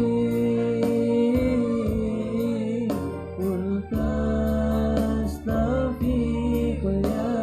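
A group of male students singing a melodic song with sustained instrumental accompaniment and regular percussive strokes.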